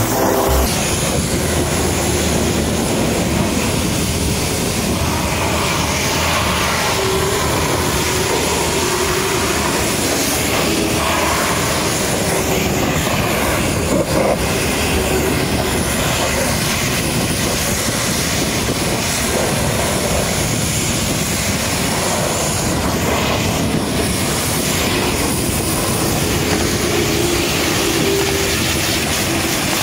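High-pressure washer jet blasting water onto a tipper truck's steel tailgate and rear chassis: a loud, steady hiss of spray.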